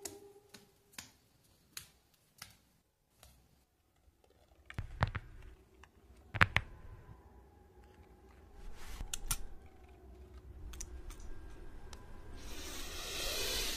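Sparse soft clicks and ticks, then two dull thuds about a second and a half apart, a few more clicks, and a hiss that swells near the end. These are cartoon sound effects, with no speech or music.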